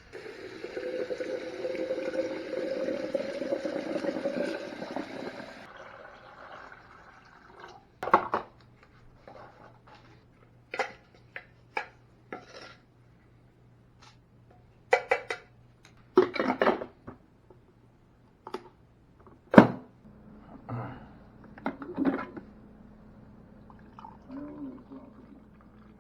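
Water running into a container for about six seconds, its pitch rising slightly as it fills. Then come scattered clinks and knocks of dishes being handled.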